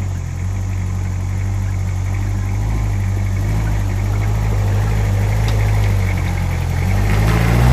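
Off-road 4x4 jeep engine running steadily at low revs, then revving up near the end.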